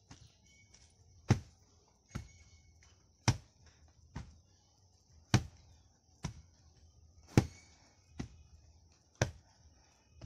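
A wooden-handled hand rammer pounding the earth floor of a foundation trench, compacting it. Sharp blows land about once a second, nine times, some harder than others.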